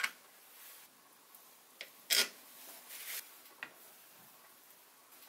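Kitchen knife cutting through soft mysore pak in a glass baking dish, the blade clicking and scraping against the glass: a few short scrapes and taps, the loudest about two seconds in.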